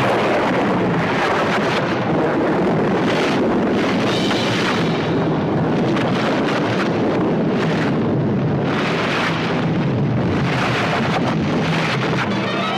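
Loud, steady rumbling like thunder or an earthquake: a film sound effect of the stone sealing the tomb being moved, mixed with music.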